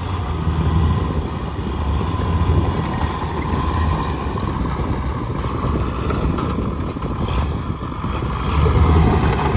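Case 850H crawler dozer's diesel engine running with a steady low drone, swelling a little near the end.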